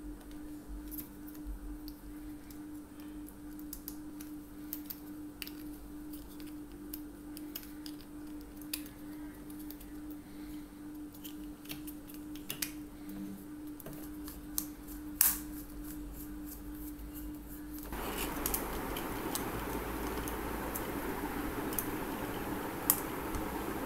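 Small clicks and scrapes of a screwdriver turning terminal screws and handling a plastic mains plug while wires are fastened in, over a faint steady hum. About three-quarters of the way through, a steady hiss comes up.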